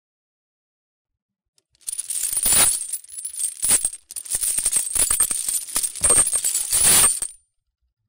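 A metal chain rattling and clinking, a dense jangle of links that starts about two seconds in, breaks off briefly near the middle, and runs on for about three more seconds before stopping.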